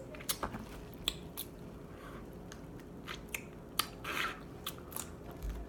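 Close-miked eating of crab leg meat: chewing, with scattered short clicks and smacks.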